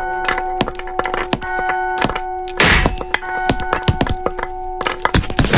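Iron shackle chains clinking and rattling in many quick, sharp metallic clicks over a held music drone. Two short, louder rushes of noise come a little past halfway and again near the end.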